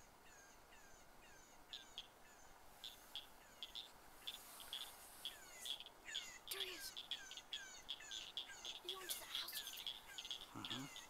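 Electronic predator call playing a repeating series of short, high-pitched downward chirps and squeaks, several a second, growing louder and busier from about four seconds in.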